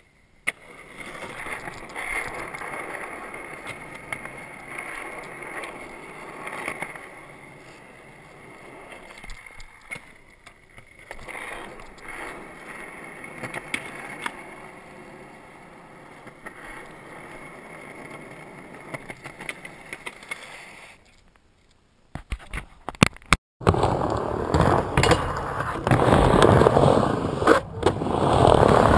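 Skateboard wheels rolling and grinding on concrete, with sharp clacks of the board. Near the end, after a brief drop-out, comes louder rolling on a wooden ramp.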